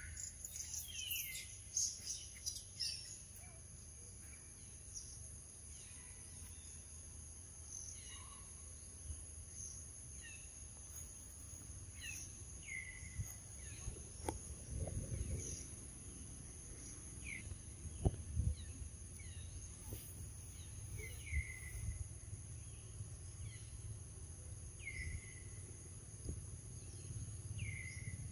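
Forest ambience: a steady high insect drone, with a bird's short falling call repeating every second or two. A low rumble and a few dull thumps come in around the middle.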